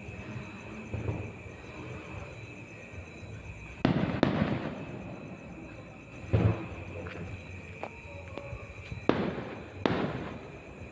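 Fireworks going off: about five sharp bangs, each with a rumbling tail. Two come close together about four seconds in, one follows a couple of seconds later, and a pair comes near the end.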